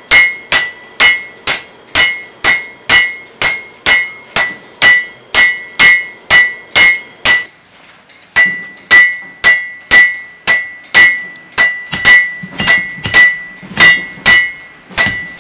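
Hammers striking metal held in tongs on a steel anvil in hand forging, about two blows a second in a steady rhythm, each with a bright metallic ring. The blows pause briefly about halfway through, then carry on.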